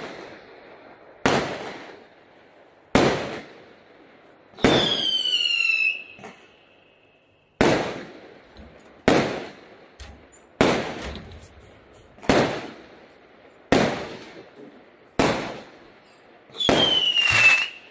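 Fireworks going off one shot at a time, about every one and a half seconds, each a sharp bang that trails off in echo. Twice, about five seconds in and again near the end, a whistling shell sounds with a pitch falling for about a second.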